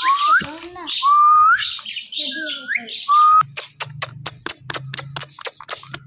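Indian ringneck parakeet giving four short whistled calls, most of them rising in pitch. About three and a half seconds in it stops calling, and a quick run of sharp clicks, about five a second, follows with a faint low hum.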